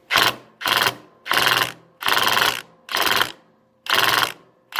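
Impact wrench hammering in six short bursts of about half a second each, working to break loose a stuck nut on the mower's transaxle pulley.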